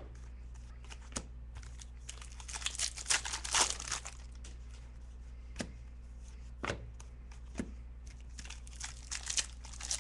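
Trading cards being handled and flipped through by hand. There is a crinkling rustle about two to four seconds in, then single soft clicks as cards are turned one at a time, and more rustling near the end.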